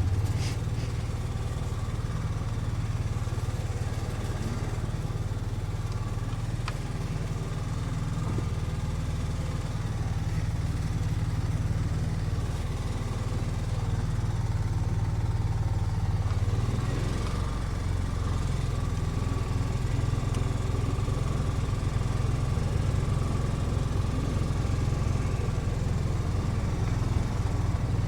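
Kawasaki Mule utility vehicle's engine running steadily as it drives along.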